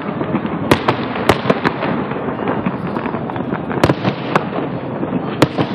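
Fireworks display: a dense barrage of aerial shell bursts, with about five sharp bangs standing out over a continuous rattle of smaller pops.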